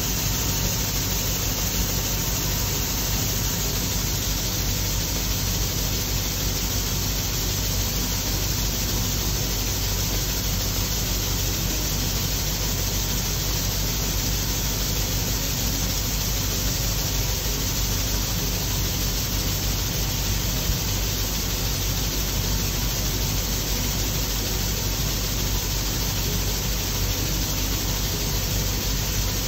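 1978 Gleaner F2 combine running steadily while unloading soybeans through its auger: a constant low engine drone under an even mechanical hiss.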